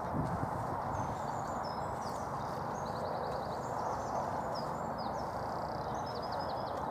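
Steady outdoor background noise with small songbirds singing short, fast trills of repeated high notes, about three seconds in and again near the end.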